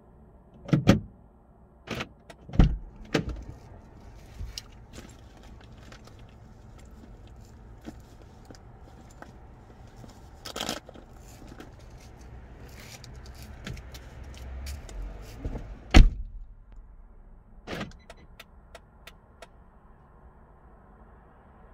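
Clicks, knocks and rattles inside a stopped car, over a low steady hum. The loudest thud comes about two-thirds of the way through, and the low hum falls away just after it.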